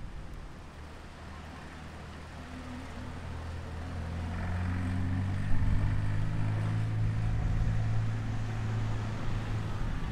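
A car's engine running as it draws near along the road, a low hum that grows louder about four seconds in and stays up, over a steady hiss of wind.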